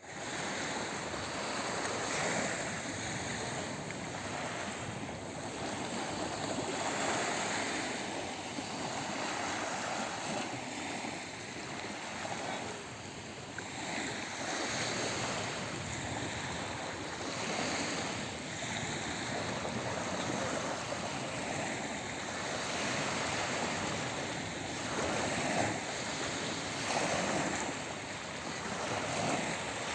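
Sea waves washing ashore: a steady rush of surf that swells and eases every couple of seconds.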